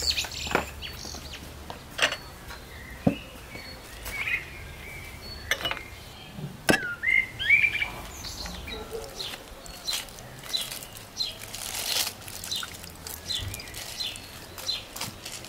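Small birds chirping now and then, with a few sharp knocks and clinks of dishes set down on a table. From about ten seconds in, aluminium foil crinkles as it is pulled open from around the food.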